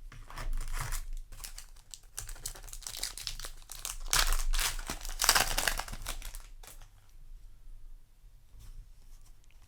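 A trading-card booster pack's foil wrapper being crinkled and torn open, loudest about four to six seconds in, then fainter rustling.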